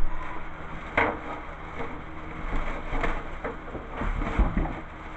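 Clear plastic packaging rustling and crinkling as bagged exercise-bike parts are handled, with several knocks and a dull thud about four seconds in.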